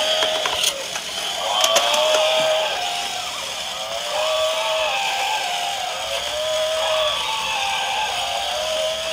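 Battery-operated walking toy animals running: small motors whining and plastic gearboxes clicking, with a repeating electronic sound effect from the toys' speakers that rises and falls about once a second.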